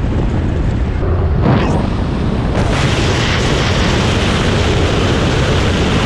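Heavy wind buffeting on the microphone of a camera mounted outside a moving pickup, a steady low rumble mixed with road noise. The hiss gets brighter about two and a half seconds in.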